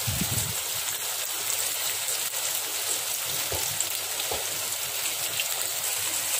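Oil sizzling steadily in a steel wok as a spiced base of onions, curry leaves, dried chillies and tomato fries, with a few soft knocks from a wooden spatula stirring it.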